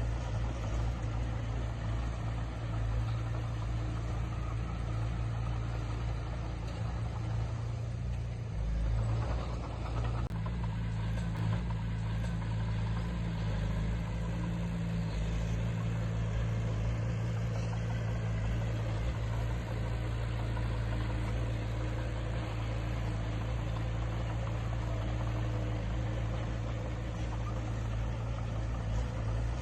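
Heavy diesel engine of earthmoving equipment running steadily, its low drone shifting slightly about ten seconds in.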